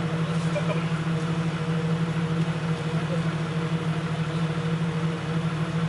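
Off-road vehicle's engine running steadily, a constant low hum with no change in revs.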